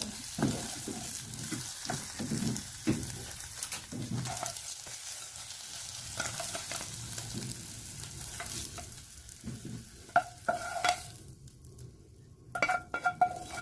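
Thai-style omelet frying in hot oil: a steady sizzle with a spatula repeatedly scraping and knocking against the pan. The sizzle stops about eleven seconds in, followed by a few sharp, ringing clinks.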